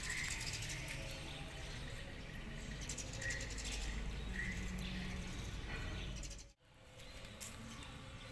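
A baby macaque giving a few short, high squeaking chirps over steady low background noise. The sound drops out sharply for a moment about two-thirds of the way through.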